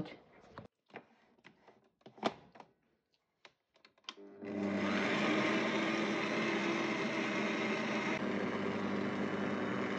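Stand mixer starting up about four seconds in and running steadily, its wire whisk beating eggs and sugar in a steel bowl for cake batter. Before it starts, a few faint clicks and taps.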